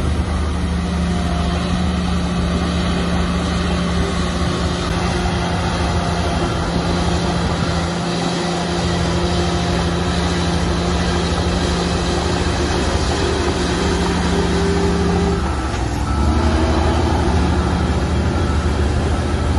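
Heavy diesel engine of earthmoving machinery running steadily with a held engine note; about fifteen seconds in the note dips and shifts, then it carries on a little louder.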